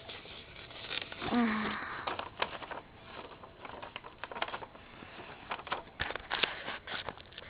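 Paper pages of a hand-drawn book rustling and crackling as they are handled and turned, with scattered short clicks and taps. A brief vocal sound comes about a second and a half in.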